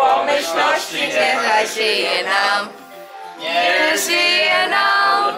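A group of men and women singing a birthday song together, with a brief break about three seconds in before the singing resumes.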